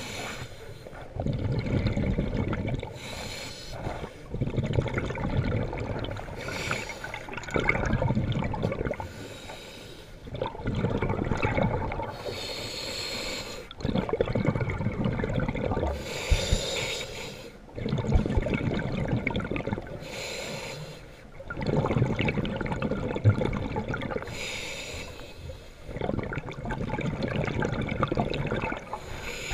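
A scuba diver breathing through a regulator underwater. A short hiss comes about every four seconds, with longer low rumbling, gurgling stretches of exhaled bubbles between.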